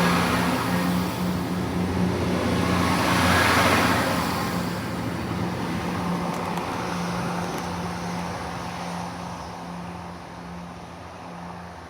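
Diesel train's engine running with a steady low drone, swelling about three to four seconds in and then fading steadily as the train moves away.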